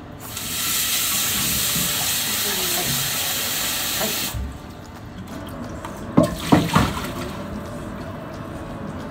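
Kitchen tap running into the sink for about four seconds, then shut off. A few sharp knocks follow as a frying pan is handled.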